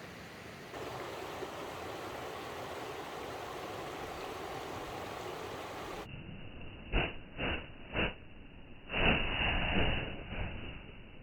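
Steady rush of a mountain stream, its level stepping up slightly about a second in. About six seconds in the sound cuts to a duller recording with three short thumps and then a longer, louder scuffing burst.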